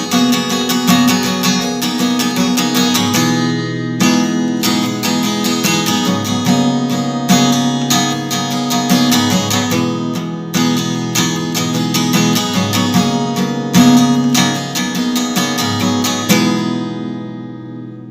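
Acoustic guitar strummed in chords, with a brief break about three and a half seconds in; near the end a last chord rings out and fades away.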